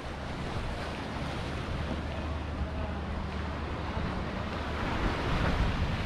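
Sea waves washing on the shore, with wind buffeting the microphone; the surf swells louder near the end.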